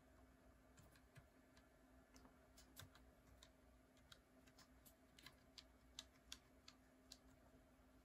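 Faint, separate keystrokes on a mechanical keyboard with lubed NovelKey Cream linear switches, keys pressed one at a time to test that each registers. The presses are unevenly spaced and come a little faster in the second half.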